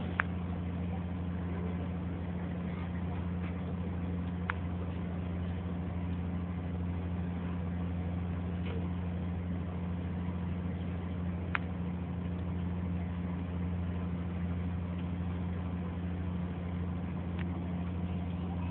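Car ferry's engines running at a steady drone, a deep even hum heard on deck while under way, with a few short sharp clicks.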